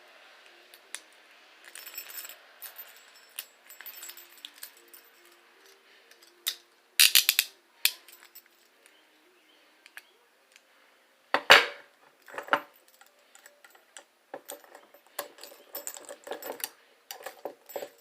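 Metal handcuffs being handled, rattling and clicking. The sharpest clatters come about seven seconds and eleven and a half seconds in, and a busy run of rattles comes near the end.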